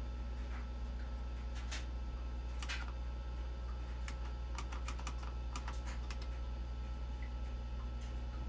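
Computer keyboard keys pressed: single clicks about two and three seconds in, then a quick run of presses between four and six seconds. Under them is the steady low hum of the running IBM AT computer with its MiniScribe 6053 hard drive spinning.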